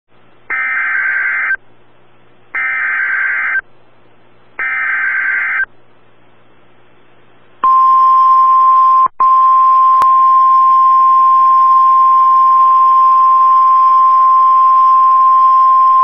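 NOAA Weather Radio Emergency Alert System signal for a severe thunderstorm warning: three one-second screeching data bursts of the SAME alert header, then, after a two-second gap, the steady 1050 Hz warning alarm tone. The tone drops out for an instant about a second and a half after it starts, over a faint radio hum.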